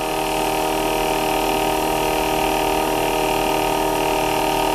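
DC brush motor spinning the magnet rotors of a home-built pancake-coil generator, running steadily at 9 V with its bulb load connected: a steady hum of several held tones.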